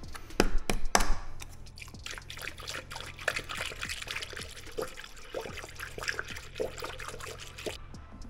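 Engine coolant poured from a plastic jug into a spill-free radiator funnel, splashing and trickling steadily. A few sharp knocks in the first second come from handling the jug as it is opened. The pour stops shortly before the end.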